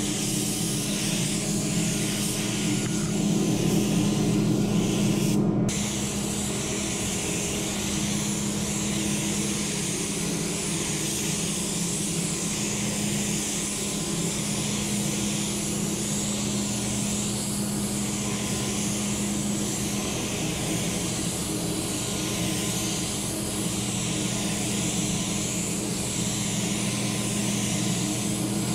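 Compressed-air gravity-feed paint spray gun hissing steadily as it sprays paint, over a steady low hum.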